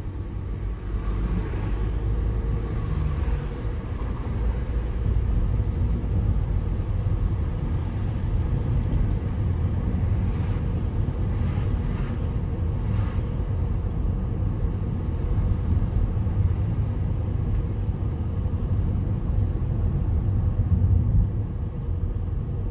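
A car's engine and tyre road noise heard from inside the cabin while driving: a steady low rumble.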